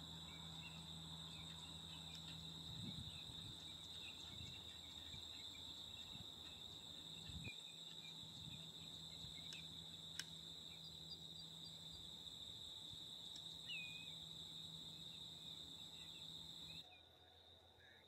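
Faint, steady trilling of insects, a continuous high-pitched drone, over a low steady hum, with a few faint short high chirps scattered through it. The trilling and hum drop away sharply near the end.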